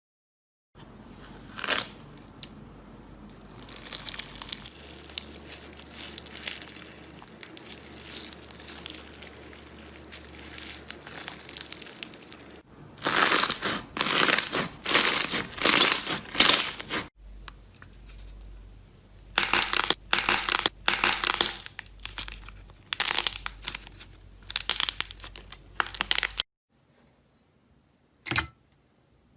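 Hands squeezing and working slime: a crackling, popping squish that grows into loud, irregular bouts about halfway through, then stops, leaving a few single clicks near the end.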